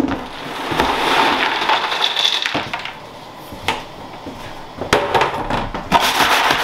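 Rehydrated popcorn kernels poured from a metal sheet tray into a plastic bin lined with paper towel: a loud rattling cascade of grain for about two seconds. It is followed by a couple of sharp knocks from the tray and bin, and a shorter rattle of kernels near the end.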